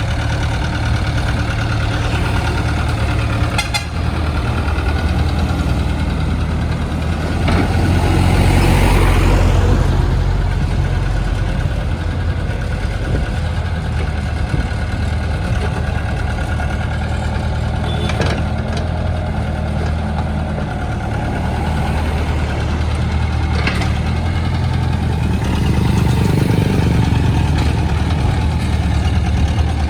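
Hyundai truck engine idling steadily, with a louder swell about eight seconds in and again near the end.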